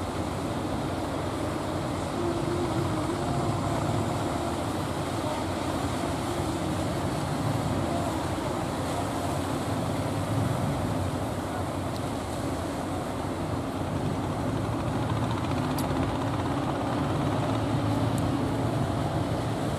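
Engines of wooden fishing boats running steadily, mixed with the wash of breaking waves.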